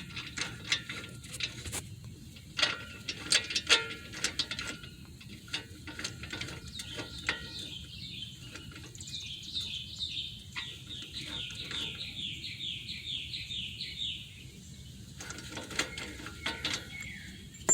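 Ratchet clicking as the loosened 18 mm hub bolts are run out of a 2004 Dodge Durango's front wheel hub assembly, with scattered clicks at first and then a fast, even run of clicks in the middle.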